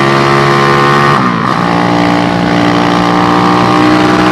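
Motorcycle with an SND ZS190 190 cc single-cylinder four-stroke engine running steadily under way. About a second in the engine note dips briefly, as in a gear change, then carries on steady at a slightly lower pitch.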